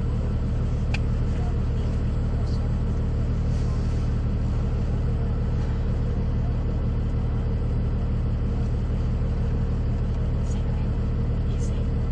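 Vehicle engine idling: a steady low hum that does not change.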